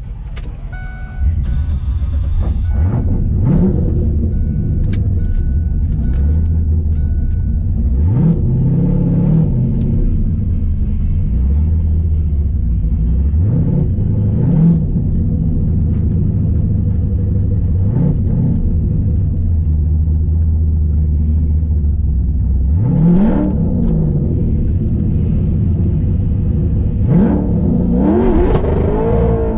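A drag-race Fox-body Ford Mustang's engine idling, heard from inside the cabin, with about eight short throttle blips that rise and fall in pitch.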